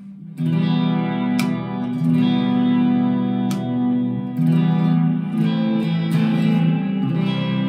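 Epiphone Les Paul Modern Figured electric guitar being strummed. Chords are picked and left to ring, starting about half a second in.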